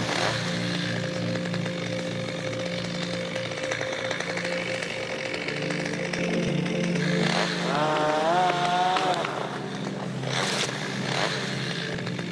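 Small engine running steadily, with a short wavering tone about two-thirds in and two sharp knocks near the end.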